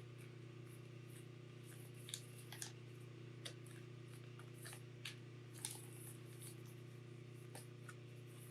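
A few faint, sharp clicks and taps of tools and parts being handled on a workbench, spaced irregularly, over a steady low electrical hum.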